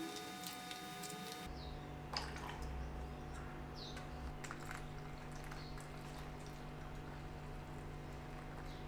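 Scattered light clicks and small scraping sounds of reed organ reeds being handled and cleaned, over a steady workshop hum; the hum changes abruptly about a second and a half in.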